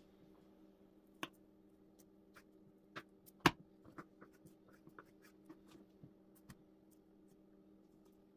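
Small knife trimming goose breast on a wooden cutting board: a scatter of light taps, clicks and scrapes as the blade meets the board, the sharpest about three and a half seconds in, over a faint steady hum.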